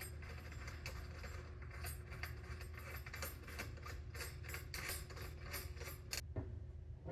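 A faucet mounting nut being unscrewed under a kitchen sink: quick, irregular metal clicking and scraping that ends with a sharp click about six seconds in, over a steady low hum.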